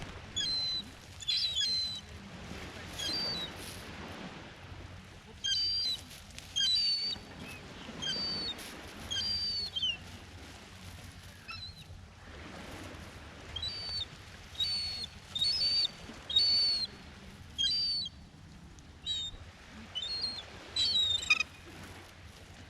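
Birds chirping repeatedly: short, high calls that come in clusters every second or two, over a low steady background hiss.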